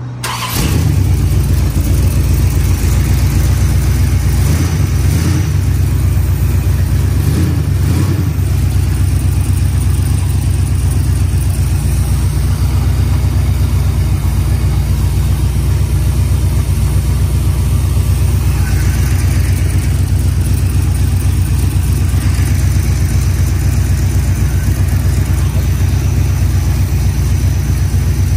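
Oldsmobile 403 V8 on an engine stand, running on a Holley 600 double-pumper carburetor, firing up almost at once and settling into a steady run. There are two brief changes in the engine note about five and eight seconds in.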